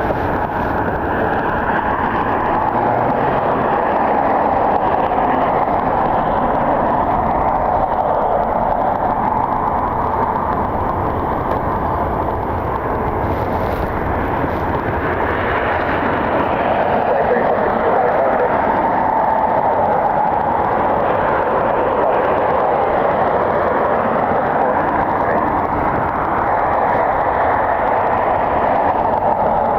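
Jet aircraft engine noise across an airfield: a steady rush that swells and eases slowly.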